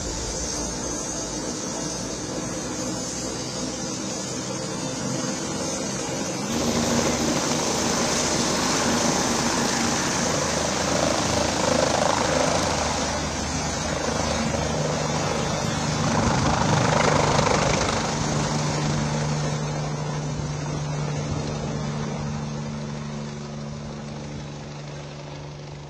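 Bell 429 twin-turbine helicopter's engines and rotor running, growing louder about six seconds in as it lifts off. It peaks past the middle, then fades steadily as it flies away.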